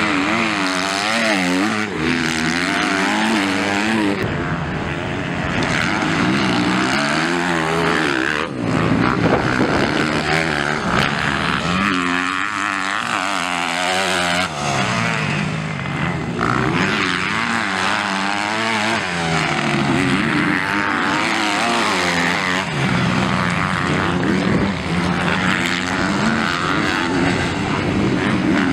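MX2 motocross bike engines revving hard through corners and straights. The engine pitch rises and falls over and over as riders shift and get on and off the throttle, with one bike after another passing close by.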